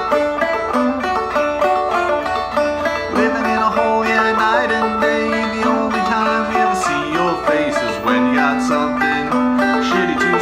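Gold Tone Carlin CC12 five-string banjo played clawhammer style in double D tuning: a steady stream of quick plucked notes, with a few sliding notes in the middle and a lower held note near the end.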